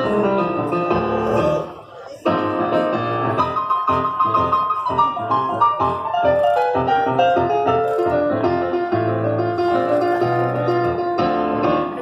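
Solo piano music played on a Korg stage keyboard through PA speakers, with deep bass notes under a melody. The playing breaks off for a moment about two seconds in, then carries on.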